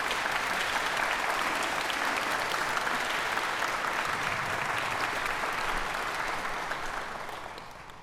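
Concert audience applauding, a dense even clapping that fades away near the end.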